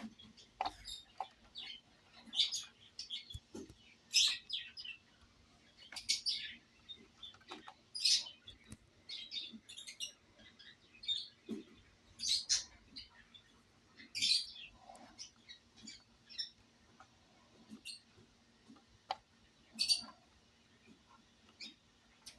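A small bird chirping, short high chirps repeated about every two seconds, over a faint steady hum.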